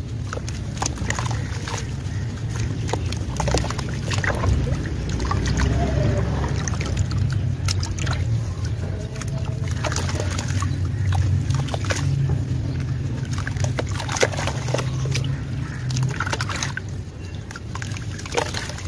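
Chunks of dry red dirt crumbled by hand, with many gritty crackles as pieces break off and clumps splashing into a tub of watery red paste, over a steady low rumble.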